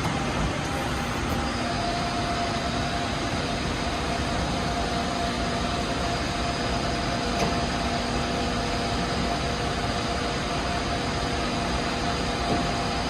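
Doosan Puma 300LC CNC lathe running under power: a steady machine hum with a whine over it. A higher whine sets in about a second and a half in, and there is one faint tick near the middle.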